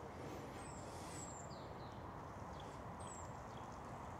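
Faint small-bird chirps: a few short, high, falling notes scattered through, over a steady low background hum.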